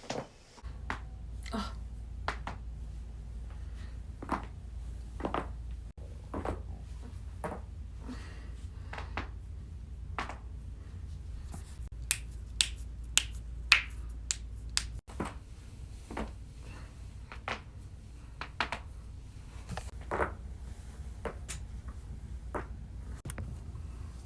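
Joint cracks during chiropractic neck and back adjustments: a string of sharp pops, roughly one a second, with a quick run of the loudest ones near the middle. A steady low hum lies underneath.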